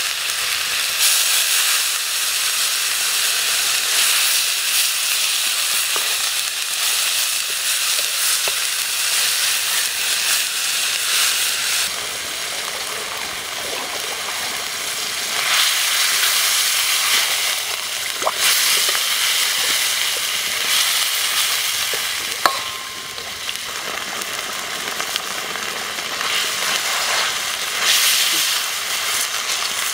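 Chicken leg pieces sizzling and frying in a carbon-steel wok, stirred with a metal ladle. The sizzle softens partway through as broth is ladled in, and the ladle gives one sharp clink on the wok about three-quarters of the way through.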